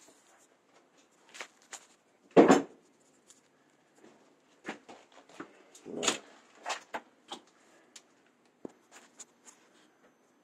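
Scattered knocks and scrapes from tearing out an old boiler, the loudest about two and a half seconds in and another near six seconds.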